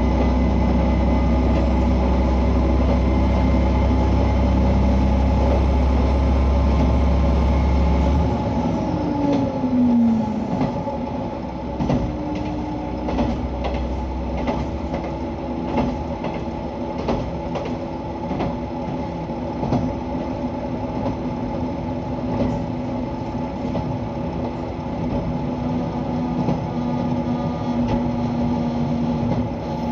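KiHa 120 diesel railcar running: a loud steady low engine drone drops away about eight seconds in, with a short falling tone. The car then runs on with a lighter hum and wheels clicking irregularly over rail joints.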